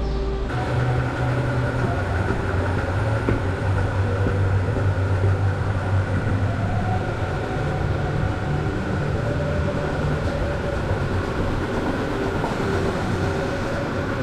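Dairy milking-shed machinery running steadily: a continuous low hum under a constant rush, with a few faint held tones above it.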